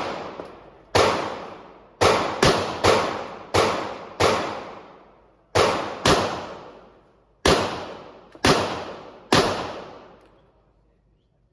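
Gunshots at a shooting range: eleven single shots at an uneven pace, some in quick pairs, each followed by a long fading echo.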